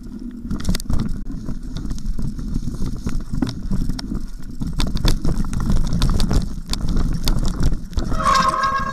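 Specialized Stumpjumper 6Fattie mountain bike ridden down a forest singletrack with its plus-size knobby tyres rolling over roots, rock and dirt. The bike rattles and clacks throughout, louder as the speed builds. A steady buzzing tone comes in near the end.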